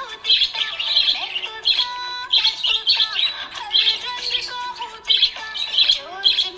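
Budgerigar chirping in quick repeated runs over background music with held notes.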